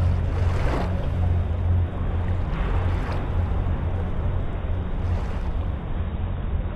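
Small waves washing in over wet sand, three soft swishes a couple of seconds apart, over a steady low rumble.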